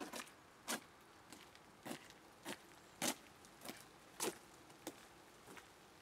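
Footsteps on a wet path at a steady walking pace, about one every 0.6 seconds, over a faint steady hiss of rain.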